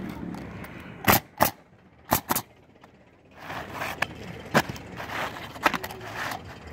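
Pneumatic coil roofing nailer firing nails through asphalt shingles: about seven sharp shots, two quick pairs in the first half, then single shots spaced out. Shingles rustle and scrape between the later shots as a new one is set in place.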